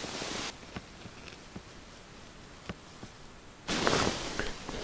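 Quiet outdoor hiss with a few faint, scattered clicks. The hiss steps up louder about three and a half seconds in.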